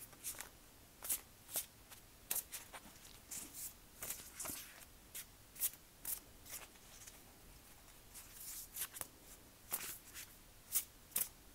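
Tarot cards being handled: faint, irregular crisp rustles and soft clicks, a few each second.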